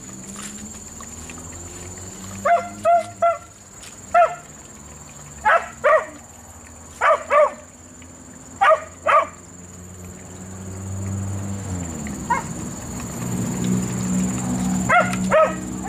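A dog barking: about a dozen short, high-pitched barks, mostly in quick pairs, over the first ten seconds or so, then a pause and two more barks near the end.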